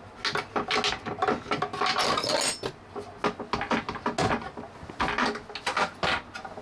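Small metal hook-and-eye catches on a pair of wooden cabin doors clicking and rattling as they are unhooked, then the wooden doors knocking as they swing open, a string of short clicks and knocks.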